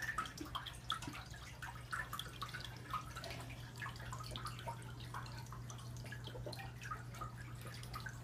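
Aquarium water trickling and splashing in many small, irregular drips, over a steady low hum from the tank's running equipment.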